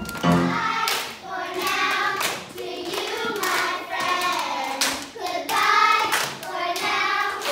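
Piano accompaniment breaking off, then children's high voices calling out over scattered hand claps as a song ends with applause.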